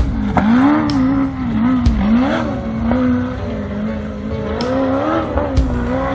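Off-road race car's engine revving up and down over and over as it climbs a rocky hill, with sharp clicks scattered through.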